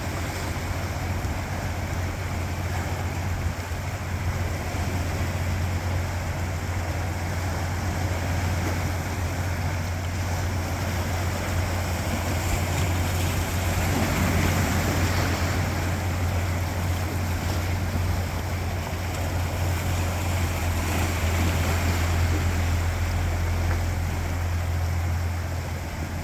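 Sea waves washing over coastal rocks, a steady surf noise over a low rumble, swelling into a louder wash about halfway through.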